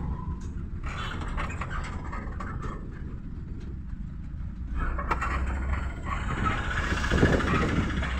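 Cab noise inside a Tata tempo being towed by a tractor: a steady low rumble of road and tyre noise with small rattles of the body. About five seconds in it grows louder and rougher, with a hard jolt near the end, as the tempo goes over a railway level crossing.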